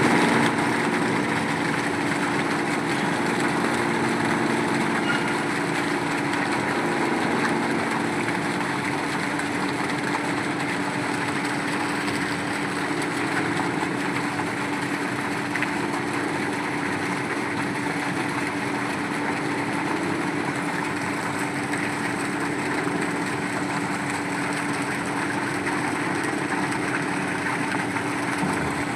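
Engine of a borewell boring machine running steadily at constant speed, a continuous even hum.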